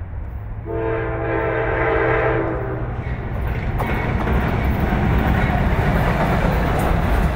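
Norfolk Southern freight train's diesel locomotives sound a multi-note air horn for about two seconds, starting just under a second in. The lead units then run past with a building rumble of engines and wheels on rail.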